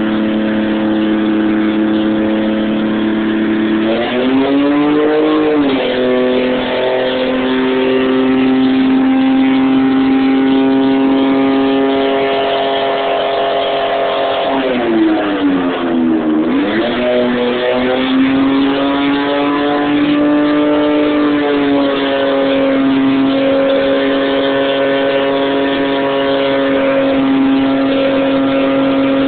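Mazda 929's engine held at high revs through a burnout, its rear tyres spinning against concrete under a steady hiss of tyre noise. The engine note steps up about four seconds in, then sags and climbs back up around the middle.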